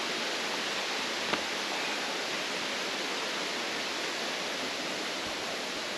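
Waterfall: a steady, even rush of falling water, with a faint tap about a second in.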